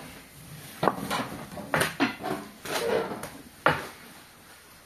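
A few sharp knocks and clatters of objects being handled, the loudest about a second in, near the middle and near the end, with quieter rustling between.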